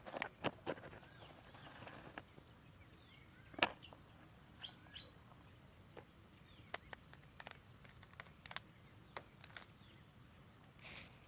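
Small birds chirping, with a short run of high, quick notes about four seconds in, among scattered sharp clicks and taps.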